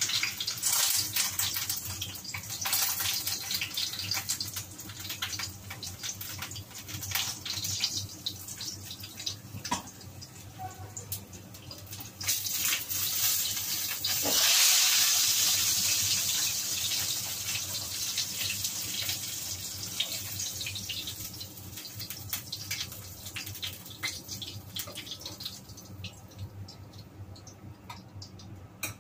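Pork cheek frying in hot oil in a pan: a steady sizzle dotted with crackles and spatters. About halfway through, while the meat is handled with tongs, the sizzle swells sharply, then slowly dies down.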